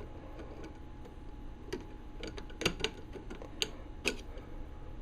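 Small metal parts clicking and ticking as a small screwdriver presses the detent ball back into a ratchet head for the reversing lever to go in. The clicks come irregularly, sharpest in the second half.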